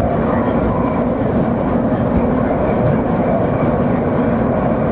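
Gas brazing torch flame burning with a steady roar while refrigeration tubing is brazed.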